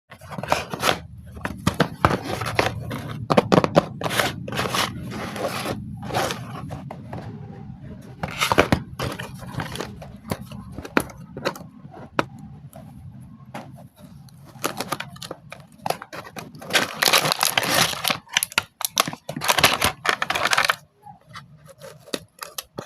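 Packaging being torn open and handled, a run of irregular tearing, crinkling and scraping noises, loudest about three-quarters of the way through.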